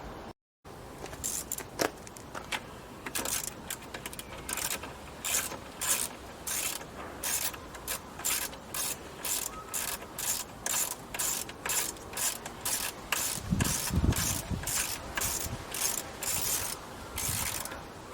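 Hand socket ratchet being worked back and forth, a burst of clicking about twice a second, with a few low knocks near the end.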